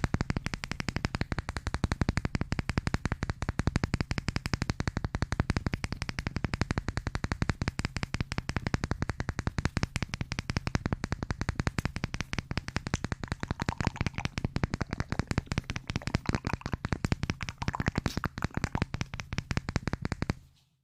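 Rapid, even tapping, many short taps a second in a steady stream that stops abruptly near the end.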